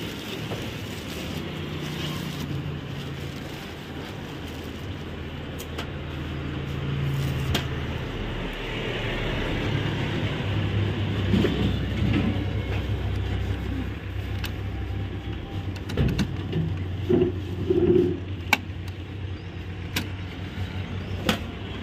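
Plastic wrapping rustling and sharp plastic clicks as a new Canon Pixma ink-tank printer is unpacked and its paper support and packing pieces are handled, over a steady low hum.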